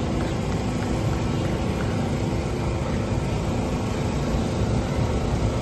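Steady rumbling noise with a heavy, fluttering low end and no clear events.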